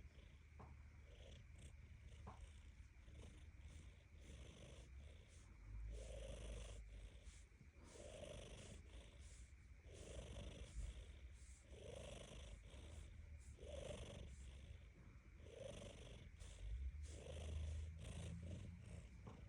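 A tabby cat purring softly, a low rumble with a breath swelling in and out about every two seconds; the owner wonders whether it is purring or snoring.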